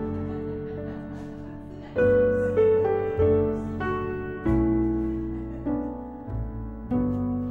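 Slow, gentle background piano music: chords struck every second or so and left to ring and fade.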